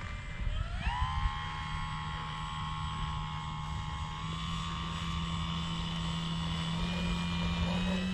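Electric motor and propeller of a Dynam Cessna 188 RC foam plane whining as the throttle opens. The pitch rises about a second in, then holds steady through the takeoff roll with a small step up around four seconds in. Low wind rumble on the microphone underneath.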